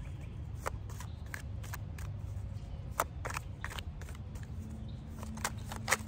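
Tarot deck being shuffled by hand: irregular sharp card snaps and taps, a few a second, the sharpest about halfway and near the end, over a low steady outdoor rumble.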